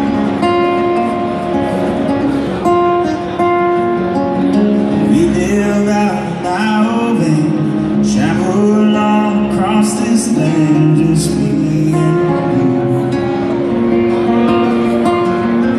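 A live band playing on stage, led by a strummed acoustic guitar, with a man singing in places, heard from the audience in a large hall.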